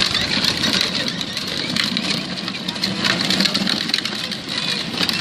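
The plastic wheels of a ride-on toy car being pushed along, rolling with a steady rumble and many small clicks and rattles.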